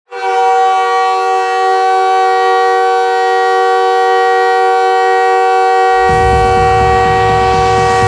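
Montreal Canadiens arena goal horn blowing, a loud, steady chord of several pitches held without a break. About six seconds in, music with a heavy low beat comes in underneath the horn.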